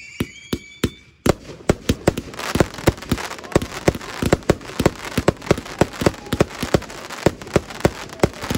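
Fireworks display: a few sharp bangs, then from about a second in a rapid run of bangs, several a second, over a crackling hiss.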